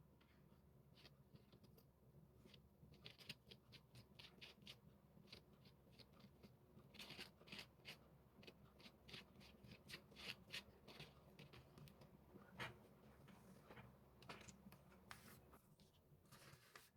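Faint crisp paper-crafting sounds: quick short scratches, snips and rustles of paper being worked by hand, sparse at first and busier from about three seconds in, over a low steady hum.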